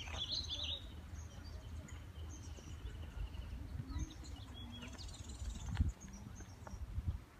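Small birds chirping, with a flurry of calls in the first second and more around four to five seconds in, over a steady low rumble. A few footsteps sound on a paved path near the end.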